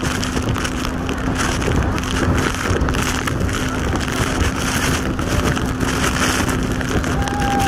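Towed banana boat at speed: wind buffeting the microphone and spray rushing past, over the steady drone of the towing jet ski's engine.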